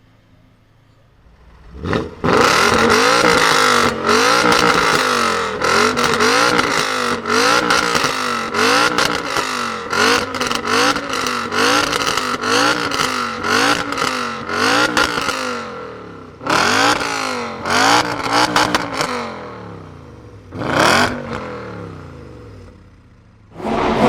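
BMW M5 engine and exhaust revved hard in a quick run of repeated blips, about one a second. Three separate single revs follow, each rising then dying away.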